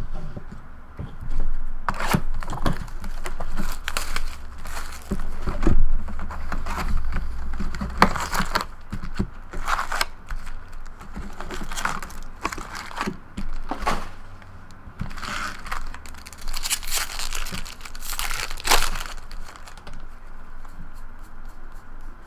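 Plastic wrap and foil pack wrappers being torn open and crinkled by hand, with irregular crackling rustles throughout: a sealed box of baseball cards and its first pack being opened.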